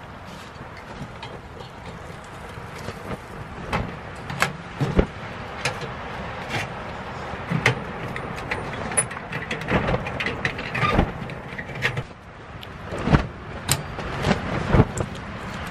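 Freshly lit kindling crackling and popping inside a small steel camp wood stove (a Four Dog Three Dog DX), over a steady rushing background. Metal clicks and clunks from the stove door being shut and its spin draft damper being turned.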